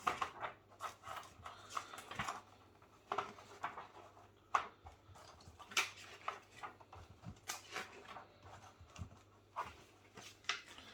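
Faint, scattered crinkles and taps of plastic snack wrappers being handled and turned over.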